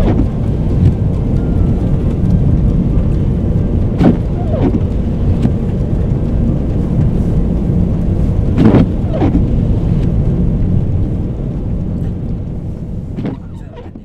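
Car cabin noise while driving through a snowstorm: a steady low rumble of road and wind noise, with windscreen wipers swishing across and back about every four and a half seconds. It all fades out near the end.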